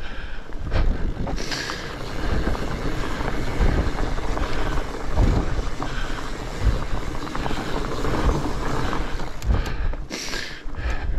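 Fat bike rolling fast down a leaf-covered dirt trail, heard from a helmet-mounted camera: wind rushing over the microphone, tyre rumble and knocks as the bike rattles over roots and bumps. The rider's heavy breathing comes through, strongest near the end.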